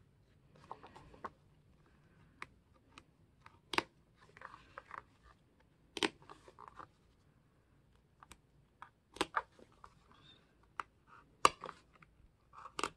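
Craft knife cutting the binding threads in the centre fold of a book signature: faint scraping and paper rustling, broken by about six sharp clicks as the blade works along the spine.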